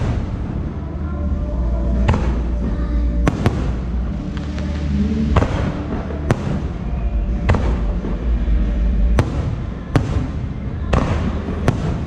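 Aerial firework shells bursting overhead in a display: a string of sharp bangs at irregular intervals, roughly one a second and some in quick pairs, over a steady low rumble.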